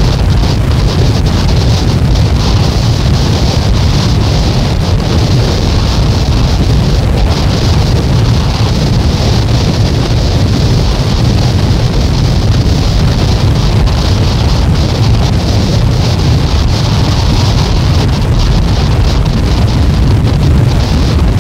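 A dense, unchanging wall of noise from a cassette album recording, with a heavy rumble underneath and a bright hiss on top, and no beat, melody or pauses.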